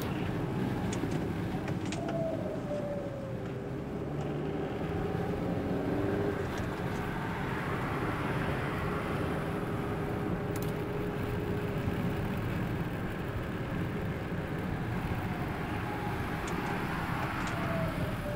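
Steady rumble and hiss of a car driving, heard from inside the cabin, with a few faint ticks.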